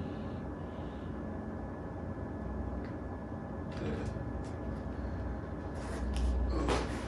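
Handling noise: rustles and soft knocks from a rubber resistance band being stretched and moved, over a steady low room hum, turning into a louder low rumble of body movement in the last second or so.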